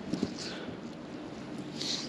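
Quiet handling noise in a small boat on the water: a soft knock a moment in and short hisses, the loudest near the end.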